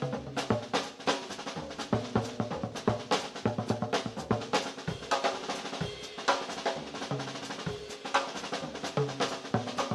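Background music: a fast drum-kit passage, dense hits on snare and bass drum with louder accents every second or so.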